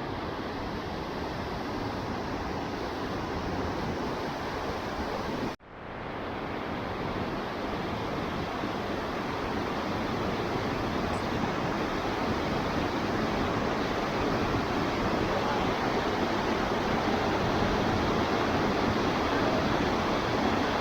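Waterfall's rushing water, a steady full roar of noise. It cuts out abruptly about five and a half seconds in and swells back up within a second.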